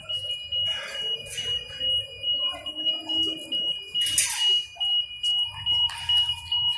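A high-pitched electronic alarm tone sounds steadily, pulsing in strength, and a second, lower tone joins about five seconds in. Short rustling noises come in between, the loudest about four seconds in.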